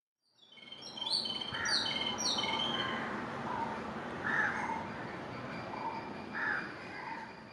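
Wild birds calling: a quick run of three high, falling chirps about a second in, and lower calls repeating every two seconds or so over a steady outdoor background.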